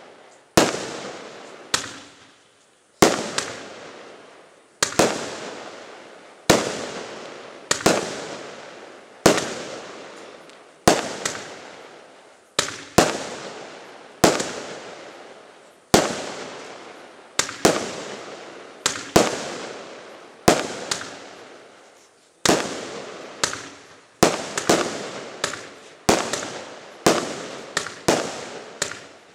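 A consumer fireworks battery (cake) firing aerial shots in succession, one sharp bang about every second and a half, each trailing off in a fading hiss. The shots come quicker in the last few seconds.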